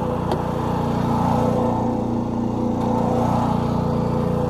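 Truck-mounted pressure washer skid's engine running steadily at a constant speed.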